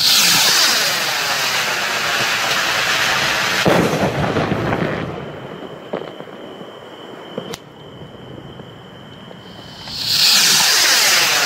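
ATLAS 1700 25 mm stick rockets being fired. A rocket goes up with a loud rushing hiss and bursts with a bang a little under four seconds in, and a few pops follow as the stars spread. About ten seconds in, the next rocket launches with the same rushing hiss.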